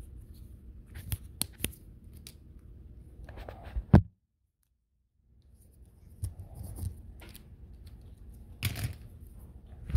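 Handling noise from a phone held low while walking: scattered clicks, rubs and rustles against clothing. A sharp knock about four seconds in is the loudest sound, and right after it the sound cuts out completely for about a second before the rubbing resumes.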